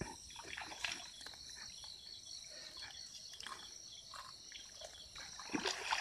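Insects trilling steadily in several high, even tones, with faint scattered clicks and a few louder short rustles or knocks near the end.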